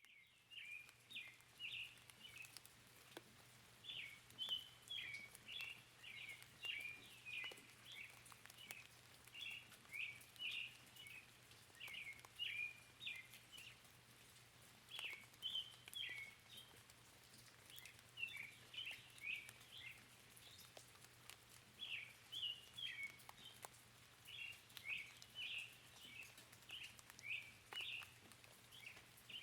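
Small songbirds chirping, short quick phrases repeated every second or so, over a faint background of patter.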